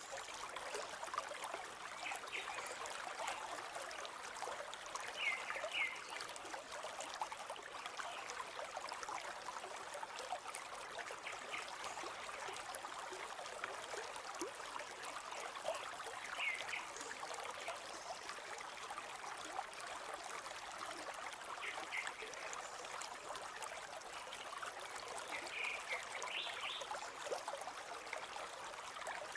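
A river flowing steadily, with short, high bird chirps breaking through the water noise several times.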